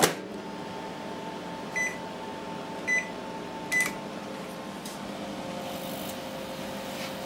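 LG microwave oven running, a steady hum from its cooling fans and transformer. There is a sharp click right at the start, and three short high beeps, like keypad presses, at about two, three and four seconds in.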